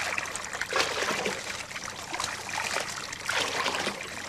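Water trickling and splashing, with a few brief surges in the flow.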